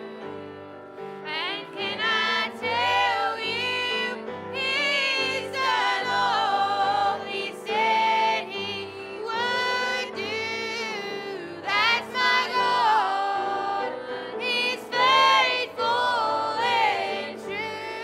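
A small church singing group, mostly women's voices, singing a gospel song over held accompaniment notes.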